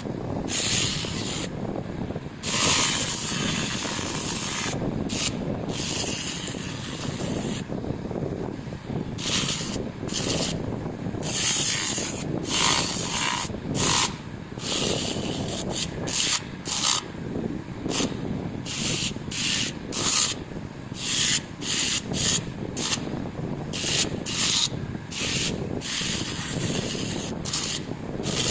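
Sandpaper scrubbing a motorcycle rear footpeg in repeated back-and-forth strokes, wet-and-dry grit rasping on the metal as it is smoothed before polishing.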